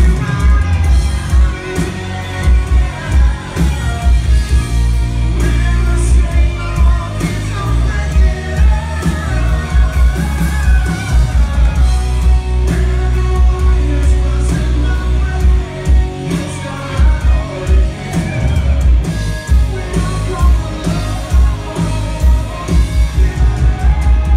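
Live rock band playing loud through a club PA: electric guitars, a drum kit keeping a driving beat, and singing, heard from among the crowd.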